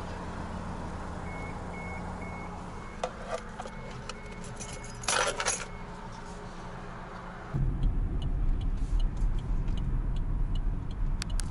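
Car engine idling, heard from inside the cabin, with a row of short high beeps and a brief jangling clatter about five seconds in. About seven and a half seconds in, engine and road noise get much louder as the car pulls away.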